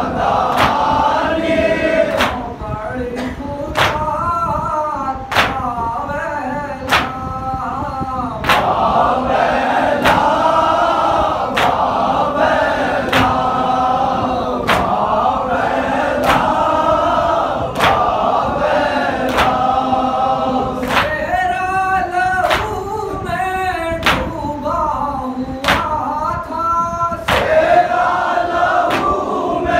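Men chanting a Muharram noha (lament) together, led by one male voice, with loud rhythmic chest-beating (matam) slaps about every one and a half seconds keeping time.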